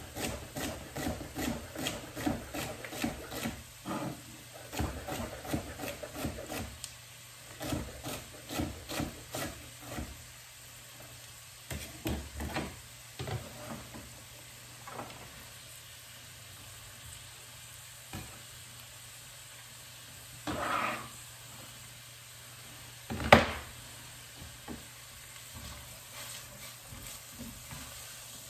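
Chef's knife chopping celery on a wooden cutting board, rapid knocks several a second for roughly the first half, over the faint sizzle of onions cooking in a pan. The sizzle carries on alone afterwards, with a single sharp knock near the end.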